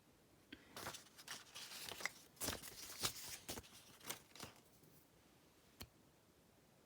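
Paper sheets rustling and crinkling as they are handled, a run of short crackles lasting about four seconds, followed by a single click near the end.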